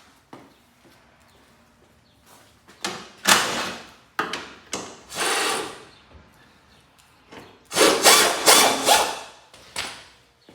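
Irregular scraping and rasping bursts from hands and tools working on a garden tractor's parts, with louder bursts about three seconds in and again around eight seconds in.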